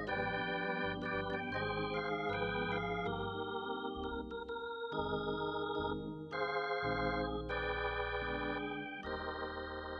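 Ballpark organ music: an electric organ playing a tune of held chords that change about every half second to a second.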